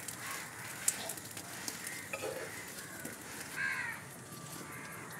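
Crows cawing about three times, over the faint crackle and sizzle of parottas frying on an iron griddle over a wood fire.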